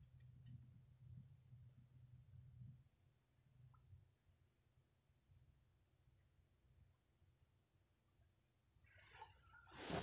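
Steady high-pitched drone of insects, cricket-like, in the plantation undergrowth. Near the end, a brief rustle of handling.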